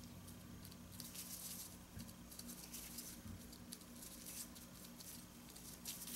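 Faint, irregular rustling and crinkling of loose disposable plastic gloves as hands roll and press a soft ball of mooncake dough, over a low steady hum.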